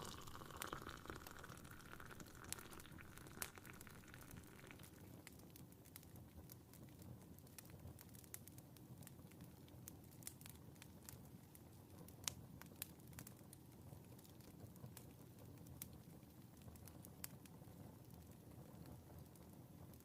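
Wood fire crackling faintly in a fireplace, sharp sporadic pops over a low steady rumble. A soft rustle fades out over the first few seconds.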